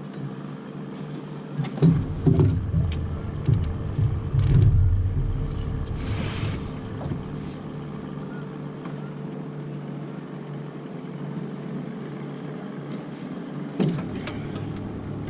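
A boat motor running steadily, with a cluster of loud thumps and knocks about two to five seconds in and one more knock near the end.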